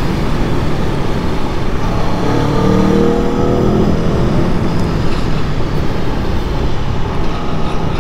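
Aprilia Tuono V4 1100's V4 engine running under way, with a short rise in engine pitch about two to three seconds in as it accelerates. After that the engine tone gives way to a steady rush of wind and road noise.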